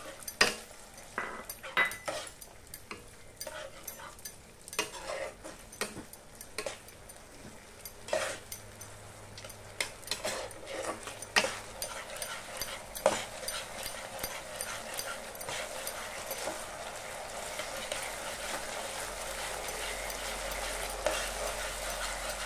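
A metal spoon scraping and knocking against a nonstick kadai as onions and capsicum are stirred in a sauce just thickened with cornflour slurry. Over the second half the clicks thin out and a steady sizzle slowly gets louder.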